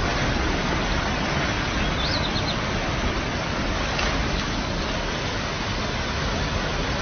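Muddy floodwater rushing past in a steady, loud rush of noise. A short bird chirp sounds about two seconds in.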